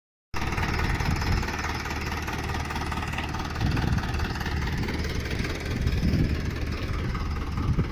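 Standard 450 DI tractor's diesel engine running steadily.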